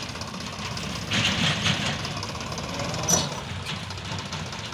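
Sonalika DI 35 tractor's diesel engine running as it pulls a loaded mud trolley, louder for about a second starting a second in. A single sharp knock is heard about three seconds in.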